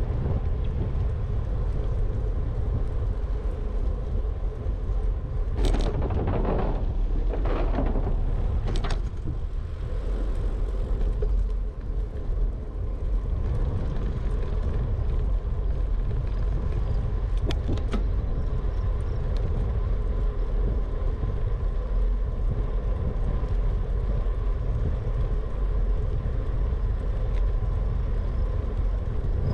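Wind buffeting a bike-mounted GoPro HERO 8's microphone over the rumble of a Trek FX2 hybrid bike's tyres rolling on a concrete path, with a few louder swishes about six to nine seconds in.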